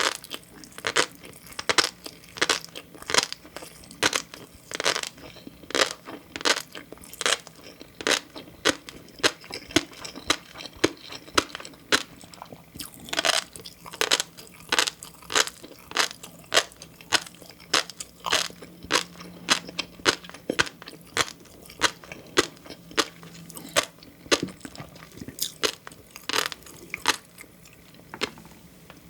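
Close-miked chewing of green tobiko (flying fish roe): a steady run of sharp, crunchy pops and clicks, roughly two a second, as the roe bursts between the teeth.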